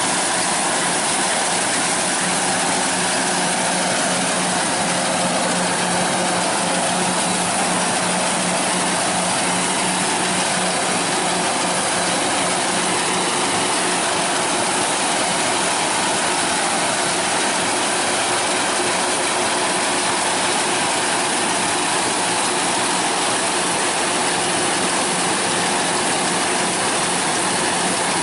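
A machine running steadily with a continuous mechanical clatter and whir and a steady low hum underneath, unchanging throughout.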